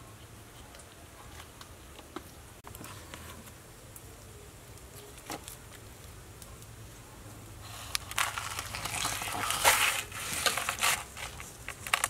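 Hands working salt and stuffing into whole snakehead fish in a metal bowl: faint handling noises at first, then from about eight seconds in a louder run of wet crackling and scraping against the scaly skin.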